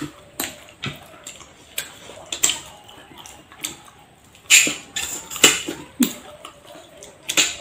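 Close-miked eating sounds: chewing and wet lip smacks from mouthfuls of rice and meat curry eaten by hand, coming as irregular short smacks and clicks, a cluster of the loudest ones a little past the middle.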